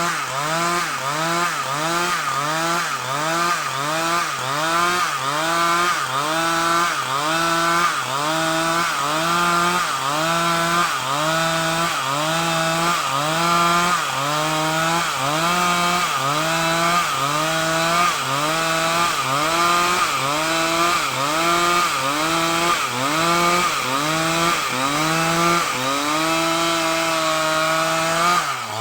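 Two-stroke chainsaw cutting lengthwise through timber to square it into a beam. Its engine pitch dips under load and recovers roughly once a second. Near the end it runs at a steadier pitch for a couple of seconds.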